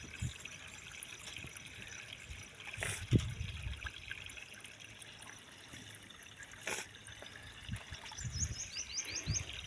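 Stream water trickling and spilling over a small drop into a fish trap. A couple of soft knocks are heard, and a run of quick high chirps comes near the end.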